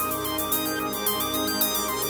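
Electronic music played on the KV331 SynthMaster One software synthesizer: a quick stepping melody of short keyboard notes over a steady pulse of high ticks, about four a second.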